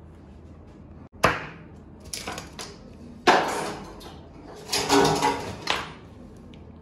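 Food-prep handling noise on a plastic cutting board: four short bursts of knocks and rustling as blanched leafy greens are laid out and moved.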